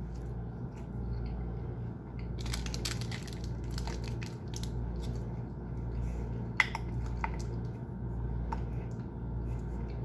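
Plastic drink bottle crackling in the hands as its screw cap is twisted, with irregular crinkles and a couple of sharp clicks a little past halfway.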